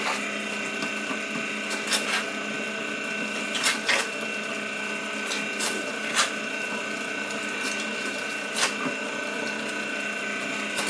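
Heavy-duty 1.5-horsepower electric meat grinder running steadily with a constant hum as it grinds cooked meat scraps, with a handful of sharp clicks over the hum.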